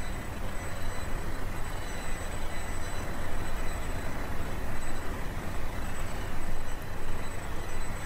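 Steady rushing background noise with a low hum and faint high-pitched whines, unchanging throughout.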